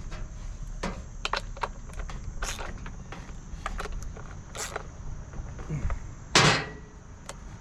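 Scattered light clicks and knocks from handling a Stihl Farm Boss chainsaw and its tools after tensioning the chain, with one louder short knock about six seconds in; the saw is not running.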